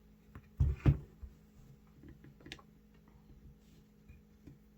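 Small tool-handling sounds: a couple of dull thumps just under a second in, then faint scattered clicks and taps of a plastic spudger and fingers working around the iPhone's screen edge.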